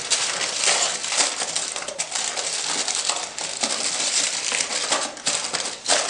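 A sheet of aluminium foil crinkling and crackling as it is handled and shaped by hand, a dense, continuous crackle of small clicks.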